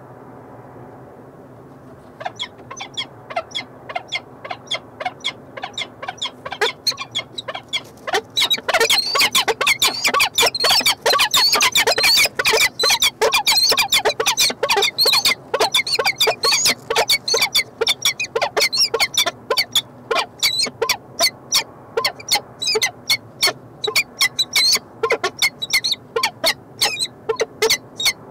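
Pair of peregrine falcons calling in a rapid series of short, harsh chupping calls, several a second, during courtship bowing in the nest scrape. The calls start about two seconds in and build to their loudest after about eight seconds.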